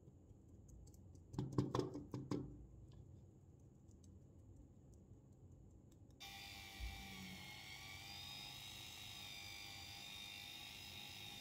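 A few sharp knocks about a second and a half in, then from about six seconds a small electric rotary tool runs steadily with a high whine, spinning a foam polishing pad against the painted plastic model car body.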